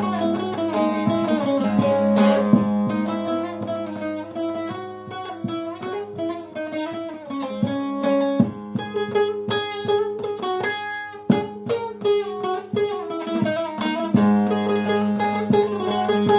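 Long-necked bağlama (uzun sap saz) played solo in a free improvisation: quick runs of plucked notes over a steady low ringing drone.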